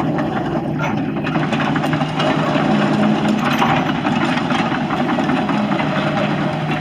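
Isuzu diesel engine of a Hitachi ZX160 tracked excavator running steadily at a constant pitch, with light rattling and clicking over it as the machine moves on pavement.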